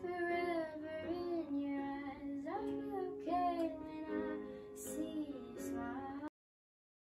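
A voice singing a slow melody over held chords on an electronic keyboard; it cuts off abruptly about six seconds in.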